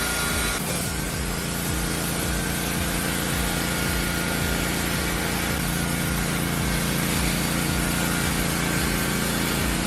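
Sawmill machinery running: an engine holding a steady speed under an even hiss, with a change in the sound a little way in.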